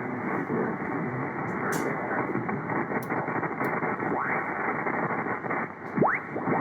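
Single-sideband receiver audio from an amateur radio satellite's downlink: steady hiss with faint, garbled voices of other stations. About six seconds in, a whistle glides quickly up in pitch.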